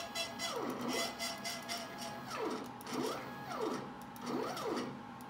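Stepper motors turning a threaded rod to lift a table saw fence's locking handle. Their whine glides down in pitch and back up several times as the motors change speed.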